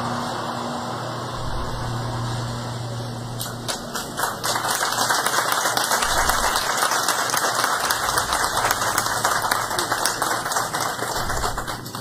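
Audience applauding, starting about three and a half seconds in and holding steady, a dense patter of many hands clapping. Before it, a low steady hum.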